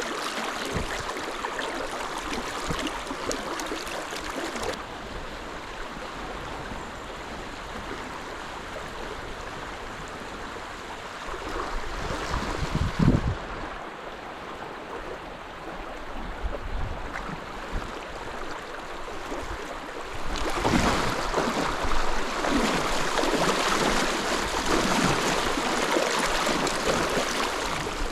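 River water rushing over a shallow rapid, a steady hiss. It drops back a little early on and becomes louder about three-quarters of the way in, with a brief low thump near the middle.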